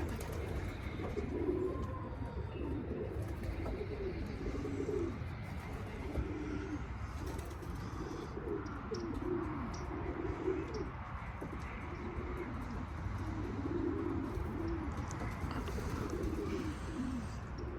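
Racing pigeons cooing over and over, the low, rolling coos of cock birds courting and driving hens in a loft where the birds are ready to breed.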